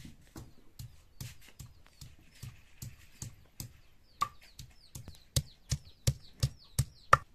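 A round hand stone pounding and crushing white pieces (likely garlic cloves) on a flat stone grinding slab: a steady run of sharp knocks about three a second, which get markedly louder over the last two seconds. Faint bird chirps sound over it.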